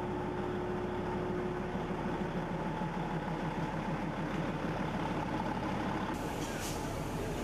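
Darjeeling Himalayan Railway toy train running, a steady engine rumble throughout, with a short hiss a little after six seconds in.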